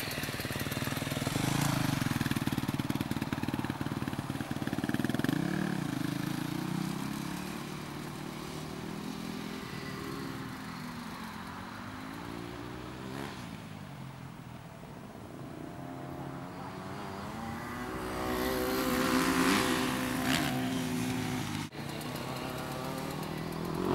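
Small children's motocross minibike engine running on a dirt track, its pitch rising and falling repeatedly as the rider opens and closes the throttle, louder again a few seconds before the end.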